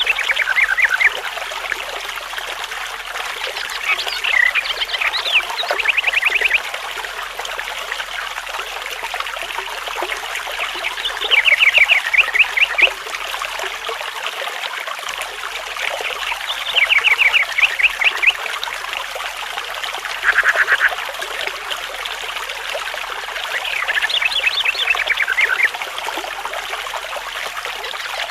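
Steady trickle of running water, with short rapid trilling animal calls breaking in every few seconds, each lasting about a second.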